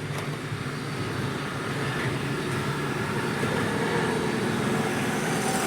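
Steady background vehicle noise, swelling slightly a little past the middle.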